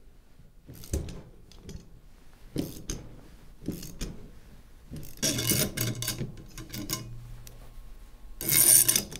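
A hand ratchet wrench tightening the nut on a threaded-rod bearing puller, pressing a new sealed bearing onto a steel shaft: scattered clicks and metal-on-metal scraping, with a louder clatter near the end.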